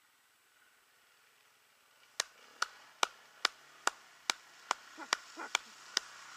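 Sharp clicks start about two seconds in and repeat evenly, a little over twice a second. Under them, a dirt bike's engine is heard faintly, growing slowly louder as the bike climbs the muddy track toward the camera.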